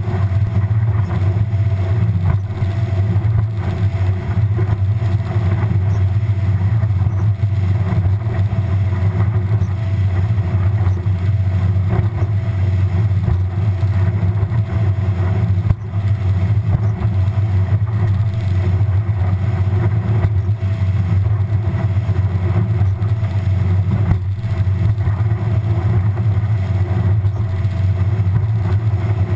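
Bass boat's outboard motor running steadily at speed, a loud, even low drone.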